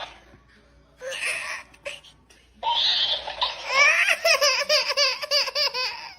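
A baby laughing: a short high-pitched laugh at the start and another about a second in, then continuous giggling in rapid rising and falling bursts from about two and a half seconds in.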